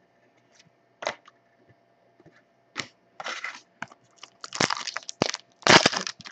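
Foil trading-card pack wrapper crinkling and being torn open, with a few sharp clicks of card handling first; the crackling gets louder and more frequent over the last three seconds.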